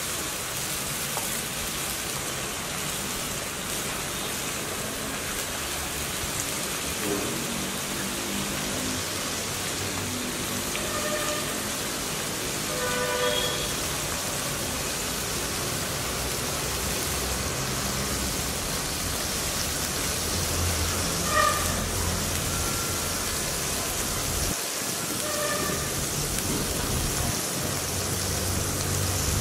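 Oil sizzling steadily in a kadai as a spiced paste fries, with a few brief faint tones in the background.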